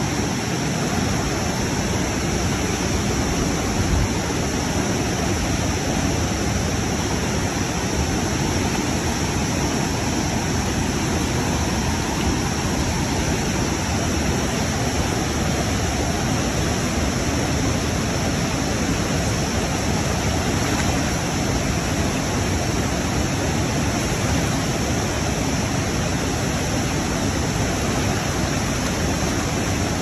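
Fast-flowing mountain river rushing steadily over its bed, a constant even roar of water with no breaks.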